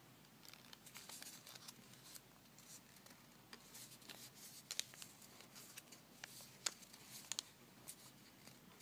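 Faint rustling and crinkling of folded origami paper being handled and shaped, with a scattering of small, crisp ticks.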